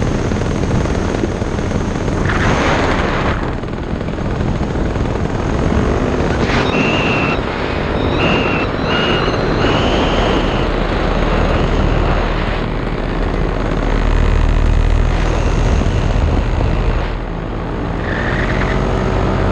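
Paramotor engine and propeller running steadily in flight, close to the microphone.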